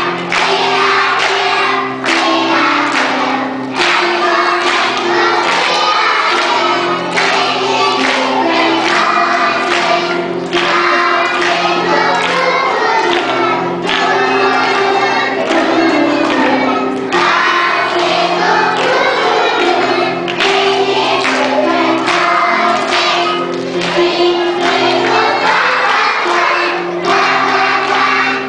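Choral music: many voices singing together over held chords that change every second or two.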